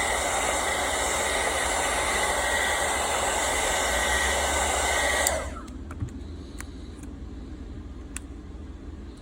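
Heat gun blowing hot air to soften the adhesive under a phone's back glass, a steady rushing noise with a faint whine; it is switched off about five seconds in, followed by a few light clicks.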